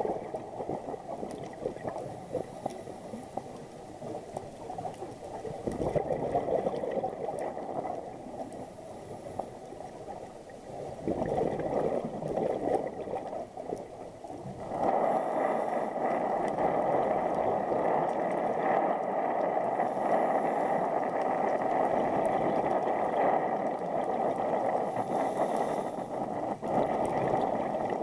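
Muffled underwater water noise: a gurgling, bubbling wash heard through an underwater camera, growing louder about halfway through.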